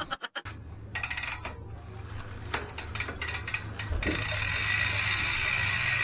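Weapon Ambush rear bicycle hub's freewheel ratcheting as the wheel turns, still loud after three months of use. It starts as separate clicks, and from about four seconds in it becomes a fast, steady buzz.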